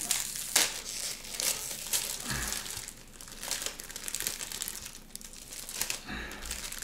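Thin plastic food wrap crinkling and rustling in irregular crackles as it is peeled off a packaged pizza.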